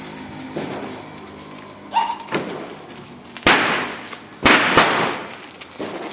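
Firecrackers going off: three sharp bangs in the second half, the last two close together, each with a short trailing echo.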